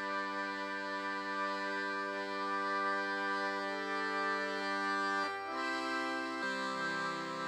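Instrumental music of slow, held chords that change about five seconds in and again a second later.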